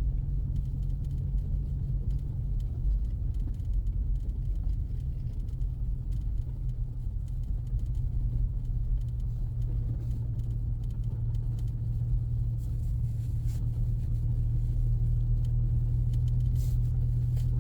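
Inside the cabin of a 2024 Ford Mustang EcoBoost, its 2.3-litre turbocharged four-cylinder engine and tyres on snow-covered road make a steady low drone and rumble while driving. The engine drone grows a little stronger in the last few seconds.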